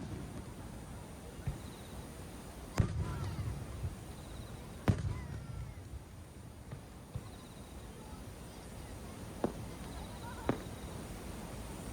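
Aerial fireworks shells bursting: two loud bangs about three and five seconds in, each trailing off in a low rumble, then two smaller pops near the end.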